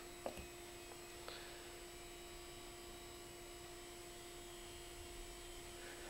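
Faint steady electrical hum, one low tone held throughout, with a soft click about a third of a second in.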